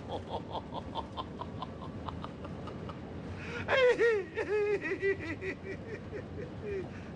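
People laughing: rhythmic ha-ha laughter fading over the first couple of seconds, then a higher-pitched burst of laughter about four seconds in that breaks into short, quick giggles.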